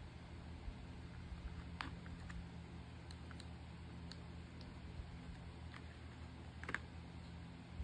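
Light, scattered clicks and taps of small items and packaging being handled while orders are packed, about seven in all, the loudest near the end, over a steady low hum.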